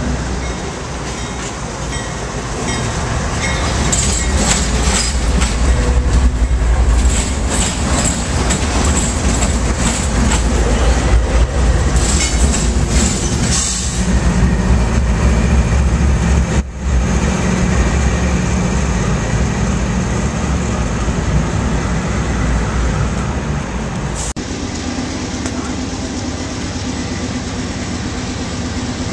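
CSX GE AC4400CW diesel-electric locomotive rolling slowly past at close range, its diesel engine giving a loud, steady low rumble. Clusters of clicking and rattling from the steel wheels on the rails come a few seconds in and run for about ten seconds.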